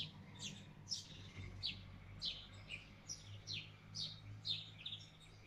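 A small bird chirping: faint, short, high chirps falling in pitch, repeated about twice a second.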